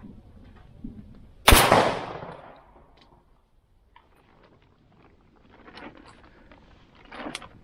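A single shot from a Derya MK12 12-gauge shotgun, sharp and very loud, its echo dying away over about a second and a half. Later, faint scattered crackles of a small campfire.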